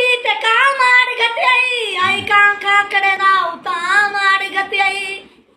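A young boy singing unaccompanied in a high voice, holding long notes that waver and glide between pitches, and breaking off briefly just before the end.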